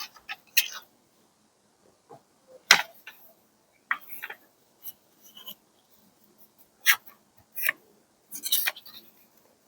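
Paper and craft materials being handled on a journal page: about ten sharp clicks and taps at uneven intervals, some with a short papery rustle.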